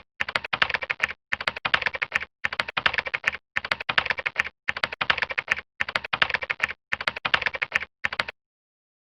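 Rapid typing clicks, like a computer keyboard, in even bursts of about a second separated by short breaks, stopping abruptly near the end.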